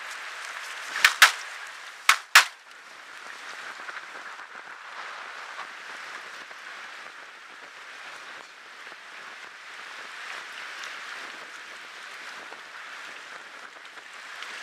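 Four shotgun shots from a duck blind, fired in two quick pairs about a second apart: hunters shooting at incoming waterfowl. Steady wind and wave noise follows.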